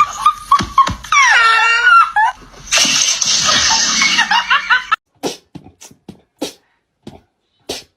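Loud laughter, with a high bending squeal about a second in. About five seconds in it cuts off, and a run of short, separate bursts follows, roughly two a second.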